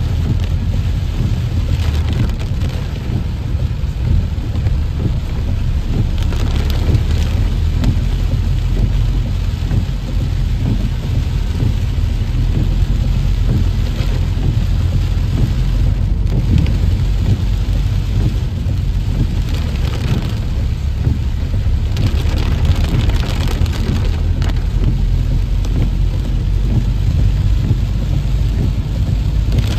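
Heavy rain pelting the glass and body of a moving vehicle: a dense, steady hiss that swells in strength every few seconds, over a constant low rumble.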